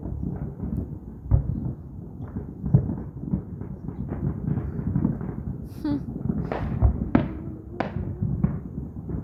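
Fireworks going off: an irregular run of bangs and pops, with several sharper reports in the second half.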